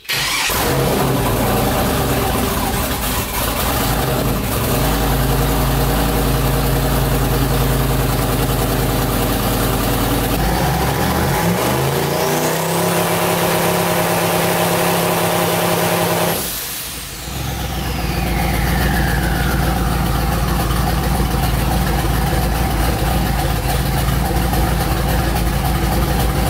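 Twin-turbo LS V8 running loud through open bull-horn turbo dump pipes while held on the brake to build boost. The engine note changes about ten seconds in, a high turbo whistle rises near twelve seconds, and after a brief dip in the sound near seventeen seconds the whistle falls away as the engine settles back to steady running.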